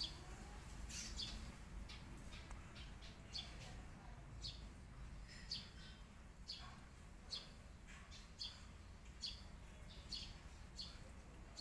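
Faint short, high chirps from small birds, repeating about once a second, over a low steady background rumble.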